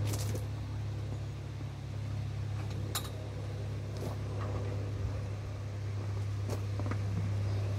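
Old Fendt tractor's diesel engine idling steadily with a low hum, with a few sharp metallic clinks from the trailer hitch as the trailer is coupled.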